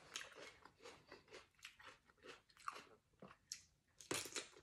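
Raw cucumber being chewed with soft, wet crunches, about three a second. A louder crunching bite into the cucumber comes about four seconds in.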